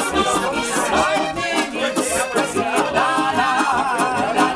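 Diatonic button accordion (Steirische Harmonika) playing a lively folk tune, its bass notes keeping an even beat, with guitar accompaniment and a voice singing along.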